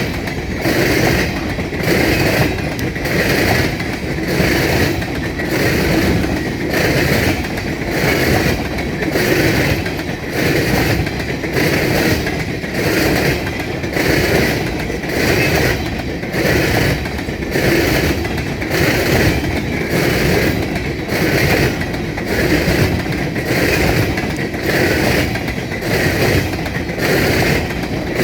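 Empty coal hopper cars of a freight train rolling past, a steady clatter of wheels on rail that pulses about once a second as each car goes by.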